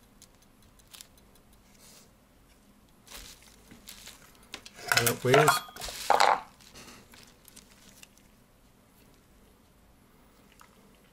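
Brass Ansonia clock movement handled and lifted off a wooden stand: a short burst of metallic clatter and knocks, with a brief ring of brass, about five to six and a half seconds in. There is only faint handling noise otherwise.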